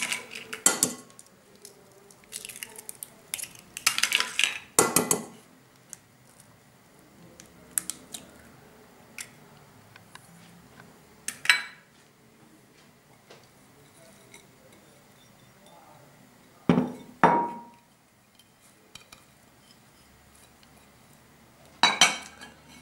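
Eggs cracked against the rim of a ceramic bowl, among scattered clinks and knocks of crockery and a spoon on the dishes. One clink about two thirds of the way through rings briefly.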